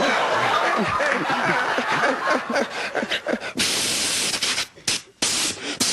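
Studio audience laughing, then a loud hissing spray sound made with the mouth into a microphone starts suddenly about three and a half seconds in, breaks off briefly near five seconds and hisses on.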